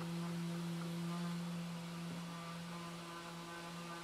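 A steady electrical hum, with the faint scrape of a steel card scraper taking light cuts of hardened epoxy squeeze-out off a wooden rifle stock.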